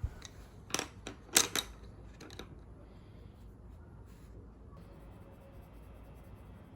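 A handful of short, sharp clicks and knocks, like small objects being handled, over the first two and a half seconds, then faint room tone.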